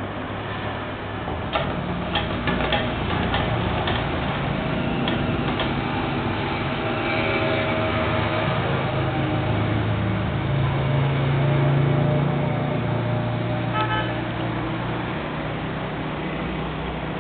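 Road traffic: steady traffic noise with a motor vehicle's engine swelling as it passes, loudest about two-thirds of the way through, and a short car-horn toot near the end. A few light clicks come a couple of seconds in.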